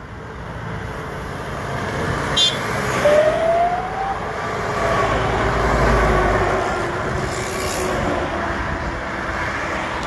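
Convoy of heavy vehicles (a fire engine, an articulated lorry and a van) driving past on the road. The engine and tyre noise swells to its loudest about six seconds in as the lorry goes by close, with a deep rumble. A short rising whine is heard about three seconds in.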